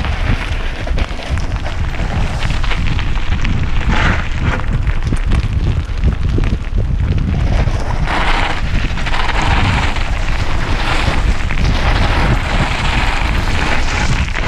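Wind buffeting the microphone of a camera riding on a moving mountain bike, a steady low rumble, with the tyres crunching over a loose gravel trail; the crunching gets louder from about eight seconds in.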